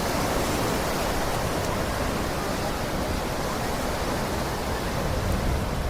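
Ocean surf washing steadily on the beach: an even, continuous hiss of breaking waves.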